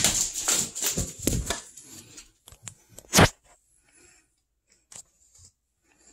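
Dense rustling and scraping for the first two seconds, then a single sharp knock about three seconds in, followed by a few faint small noises.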